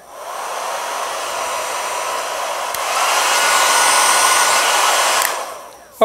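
T3 Afar travel hair dryer's fan blowing at a lower speed. About three seconds in a click steps it up to the higher of its two air speeds, louder and with a steady whine. Near the end a second click and it winds down.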